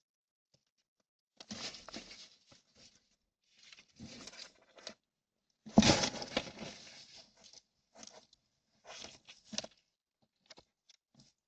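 Hedgehog scuffling and rustling over newspaper inside a plastic feeding box, in irregular bursts, with one loud knock and scrape about six seconds in.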